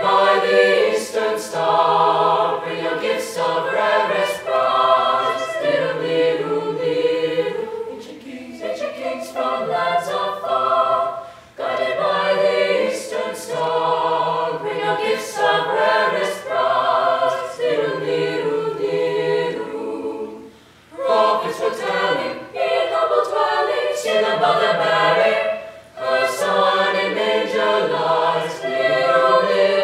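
Mixed-voice chamber choir singing a cappella in harmony, in sung phrases with short breaks between them.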